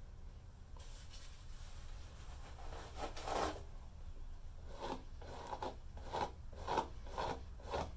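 Bristle brush strokes raking down through a long beard: one longer stroke about three seconds in, then a steady run of short strokes at about two a second.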